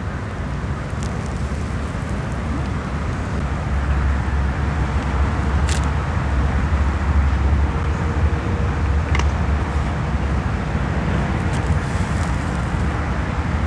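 Steady outdoor background noise: a low rumble under an even hiss, heavier from about four seconds in, with a few faint clicks.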